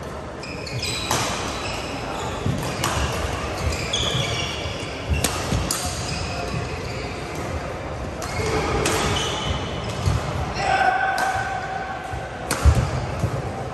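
Indoor badminton hall: sharp cracks of rackets striking shuttlecocks on several courts, short high squeaks of court shoes, and voices echoing in a large hall. A loud thud comes near the end.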